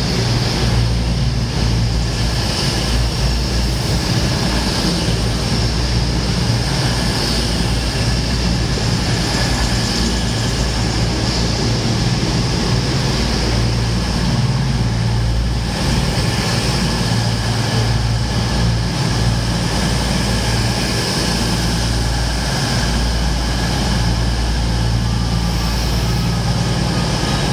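Two coupled Class 221 Super Voyager diesel-electric units pulling into a station platform at low speed: their underfloor diesel engines drone steadily under the rumble of wheels on rail.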